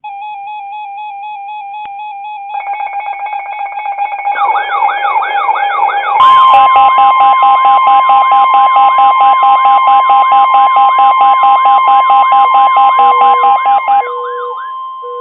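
Weather alert radios sounding their alarms ahead of a severe thunderstorm warning. Warbling electronic tones are joined by more tones at about two and a half seconds and sweeping siren-like tones at about four seconds. From about six seconds a steady high alarm tone runs under fast pulsing beeps, until they stop near the end, leaving a few low beeps.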